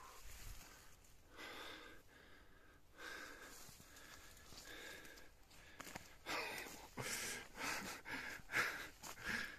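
A man breathing heavily close to the microphone while walking over dry fallen leaves. From about six seconds in there is a run of louder, regular crunching steps, roughly two a second.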